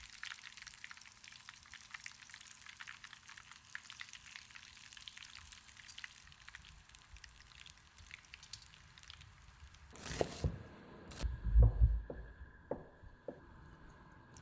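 Panko-breaded shrimp deep-frying in hot oil, a dense steady crackle from the final crisping stage at about 200 °C. About ten seconds in the crackle stops abruptly and a few heavy knocks follow.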